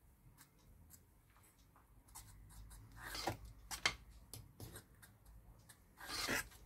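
Fork stirring flour into a thin batter in a terracotta bowl: faint scraping and light taps against the clay. They start about two seconds in, with a stronger run of scraping near the end.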